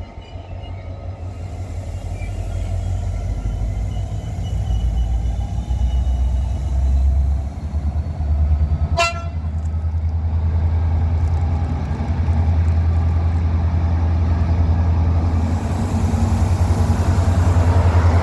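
Takargo 6007, a Euro 4000 diesel-electric locomotive with an EMD two-stroke V16, approaching and passing close by at the head of a freight train, its engine a deep steady drone that grows louder. A very short horn blast sounds about halfway through, and the noise of wheels and engine swells as the locomotive goes past near the end.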